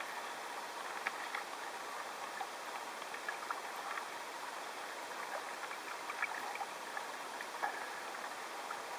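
Choppy water lapping and splashing against a floating freediving buoy, a steady rush with scattered small splashes and knocks as a wet rope is hauled in by hand and stuffed into the float.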